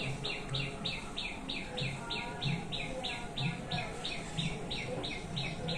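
Steady high-pitched chirping in the background, about three even chirps a second.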